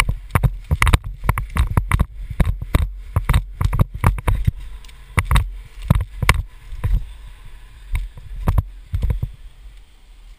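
Running footsteps over grass and rocky ground, heard as irregular heavy thuds about two to three a second through a body-worn camera, with wind rumble on the microphone. They stop near the end.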